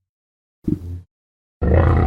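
Designed Tarbosaurus vocalisation sound effects: a short low call about half a second in, then silence, then a loud low roar that starts near the end and carries on.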